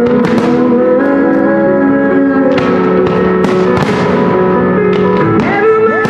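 Music for a musical fireworks display, with sustained notes throughout and several sharp cracks over it from firework shells bursting.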